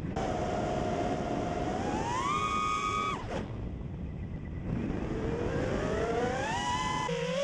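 FPV racing quadcopter's brushless motors and propellers whining over a rush of air. The pitch climbs as the throttle goes up about two seconds in, cuts out abruptly just after three seconds as the throttle is chopped for a dive, then builds again from about five seconds in.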